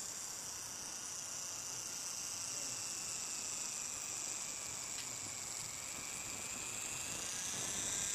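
Steady high-pitched insect drone, with the thin whine of the RC boat's small solar-powered electric motor rising and getting louder near the end as the boat comes close.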